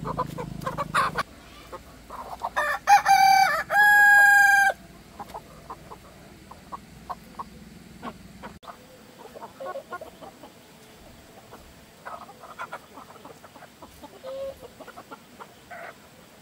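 A rooster crows once, loudly, about three seconds in, ending on a long held note; afterwards chickens cluck quietly.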